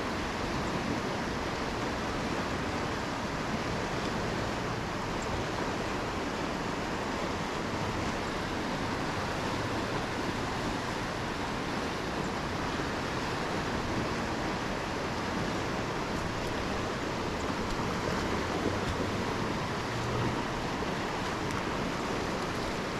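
Steady rushing of a river's current, the Blue River running high.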